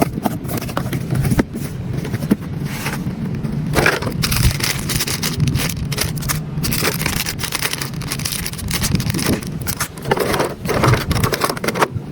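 Toy RC excavator working: its small electric motors and gears run steadily under irregular crunching, scraping and clicking.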